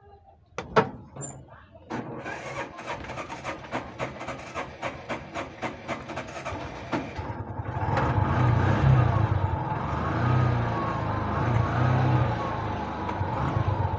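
TVS King bajaj engine started after sitting unused for several days: a couple of clicks, then it catches and chugs with a slow, regular beat. About eight seconds in it picks up and runs faster and louder, its revs rising and falling.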